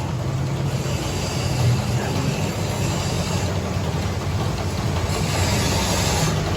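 Metal lathe running steadily: a low motor hum under an even whirring noise.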